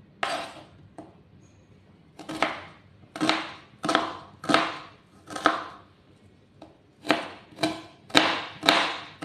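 Kitchen knife chopping red onion on a plastic cutting board: about ten sharp chops at an even pace, with short pauses about a second in and again around two-thirds of the way through.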